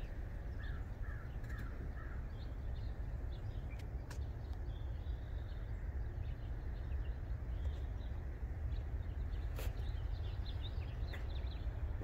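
Outdoor ambience of birds calling in short scattered notes over a steady low rumble, with a couple of faint clicks.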